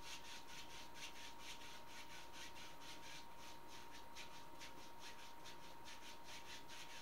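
A clean paint brush swept back and forth across a stretched canvas, blending wet paint, at about three scratchy strokes a second. A faint steady tone hums underneath.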